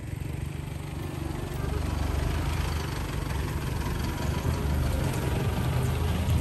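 A vehicle engine running steadily at idle, a low hum that grows slightly louder toward the end.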